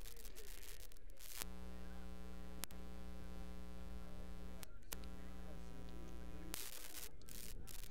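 Steady electrical mains hum with a stack of evenly spaced overtones, cutting in about a second and a half in, dropping out briefly near five seconds and stopping shortly before the end. A single click comes about two and a half seconds in.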